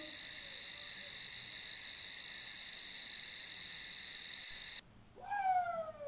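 A steady, high-pitched, rapidly pulsing insect-like trill that cuts off abruptly about five seconds in. A short falling call follows near the end, then a sharp click.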